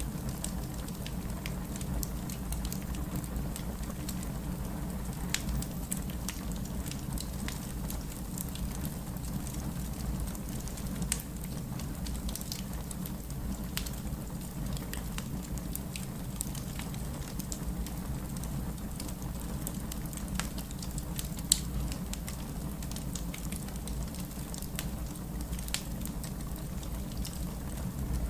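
Wood fire crackling in a fireplace: a steady low rumble of the flames with frequent small snaps and pops, and one sharper pop about three quarters of the way through.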